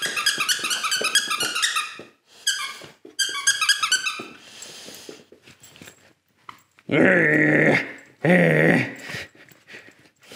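German Wirehaired Pointer puppy at play in a tug game with a toy: quick runs of high squeaks over the first four seconds, then two longer, lower sounds about seven and eight seconds in.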